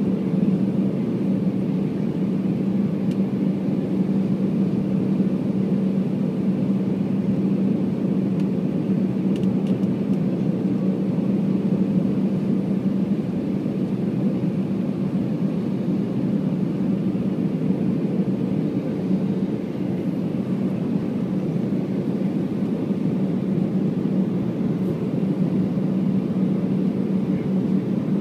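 Airbus A319 cabin noise on final approach: engine and airflow running as a steady roar with a constant low drone, heard inside the cabin from a window seat beside the engine.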